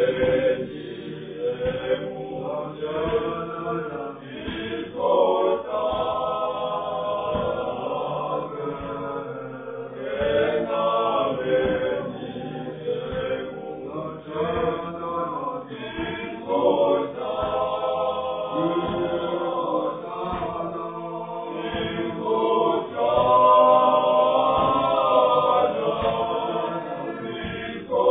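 A church men's choir singing a cappella in harmony, a chant-like hymn carried on without pause.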